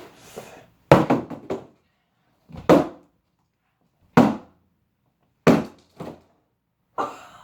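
Cardboard box being struck hard again and again: a quick cluster of thuds, then four more single blows a second or so apart.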